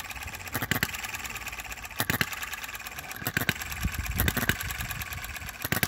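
Enjomor miniature single-cylinder hit-and-miss petrol engine running just after starting: a fast, even ticking with a heavier stroke every second or so, its governor set with a weaker spring.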